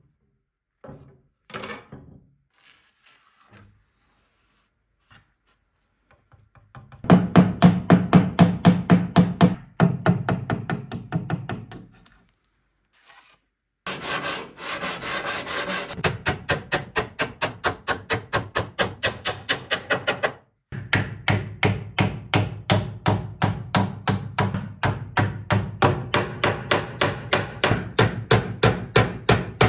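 Wood being rubbed back and forth by hand in fast, even strokes, about five a second, in three long runs broken by short pauses. A few light knocks come before the first run.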